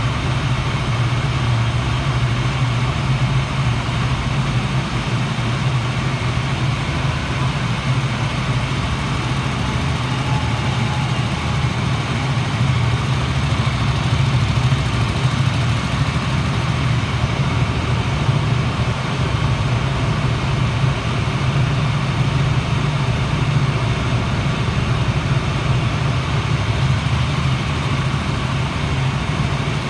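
KTM 200-class single-cylinder four-stroke engine (Duke 200 / RC 200) idling steadily through its stock exhaust, with no revs.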